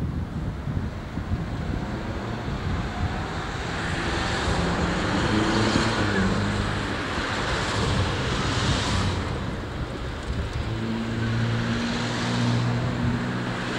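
British Rail diesel locomotive engines running with a low, steady drone. A steadier, more even tone comes in about two-thirds of the way through, over a hiss that swells and fades a few times.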